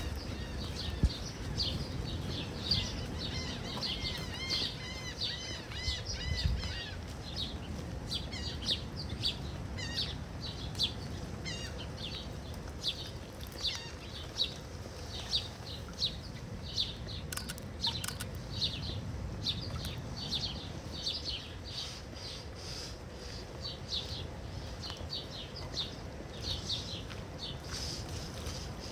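Birds chirping and singing: short high chirps repeated every second or so, with some warbled trills in the first few seconds, over a low steady rumble.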